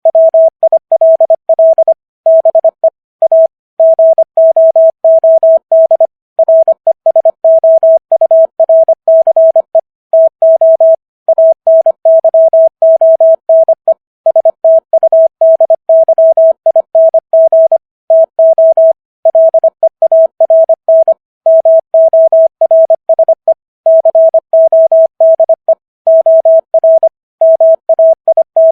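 Morse code sent at 25 words per minute as a single pure tone, keyed on and off in quick dots and dashes with short gaps between letters and longer gaps between words.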